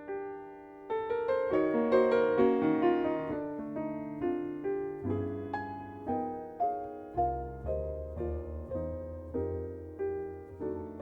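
Background music: a piano introduction, notes struck one after another, with a low bass line coming in about five seconds in.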